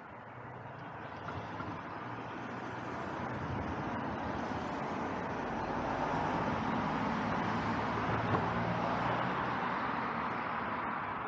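Passing motor-vehicle traffic: engine hum and road noise that slowly build over several seconds, hold, then ease off slightly near the end.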